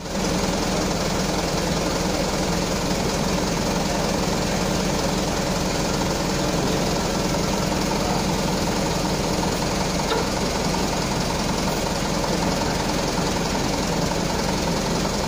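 Hydraulic pump unit running steadily, with a fast low pulsing, while valve levers are worked to retract and then extend a hydraulic cylinder jack.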